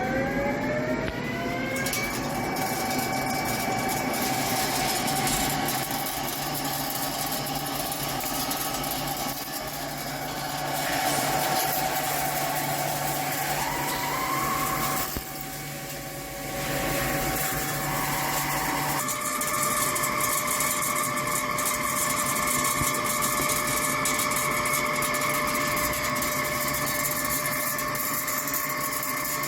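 Hankook PROTEC-9NC CNC lathe running while it turns a spur pinion shaft. The spindle's whine rises in pitch over the first two seconds as it speeds up, then runs steadily. Its pitch shifts again past the middle, with a brief dip in level.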